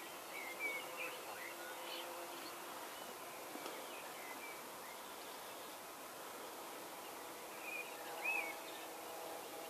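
Quiet outdoor ambience: short bird chirps now and then, the loudest about a second in and again near the end, over a faint steady hum of flying insects.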